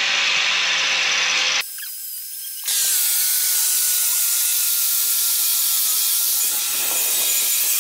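Power-tool-driven rotary wire brush scouring the steel headstock adapter, a steady harsh whirring rasp. It breaks off for about a second near the start and then carries on. The brushing strips loose rust, scale and paint off the metal ready for painting.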